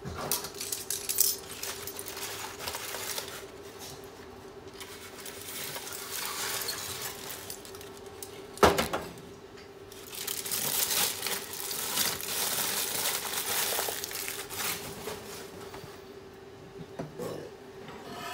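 Aluminium foil crinkling and rustling in stretches as it is peeled back and pulled away from a roast. There is one sharp knock about halfway through, and a faint steady hum underneath.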